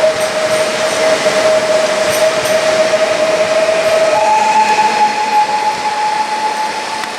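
Pesa Elf EN76 electric multiple unit running through the station: its traction drive gives a steady electric whine over rolling noise, and the whine steps up to a higher pitch about four seconds in.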